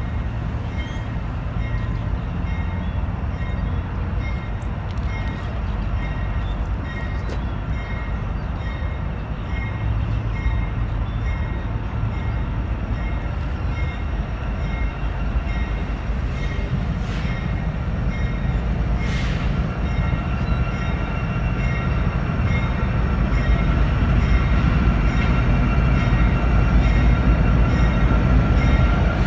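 Norfolk Southern freight train's lead diesel locomotives rumbling past at low speed, the engine sound growing louder toward the end as the units draw near, with a locomotive bell ringing steadily about once a second.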